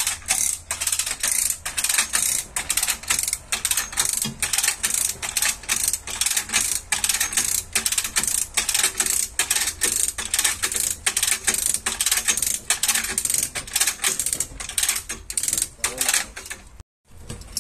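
Manual lever chain hoist ratcheting, its pawl clicking in a rapid, even run of about three to four clicks a second as the lever is pumped to pull a crash-bent front chassis rail straight. The clicking stops abruptly near the end.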